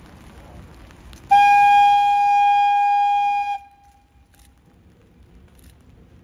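Locomotive horn giving one long single-tone blast of about two seconds that starts sharply and cuts off.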